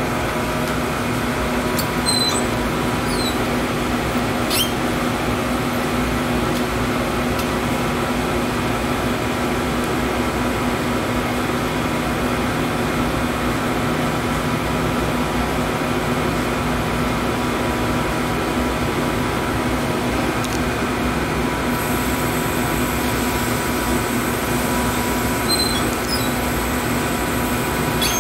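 Steady hum of cleanroom air handling and lab machinery, several even tones held at a constant level, with a few brief high chirps a couple of seconds in and again near the end.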